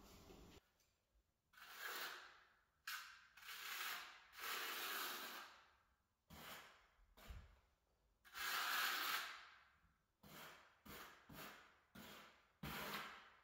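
Faint, irregular scraping and rubbing strokes of hand tools at tile work: a putty knife and trowel working thinset on the floor tile and at the edge of a plastic bucket, about a dozen strokes with short pauses between.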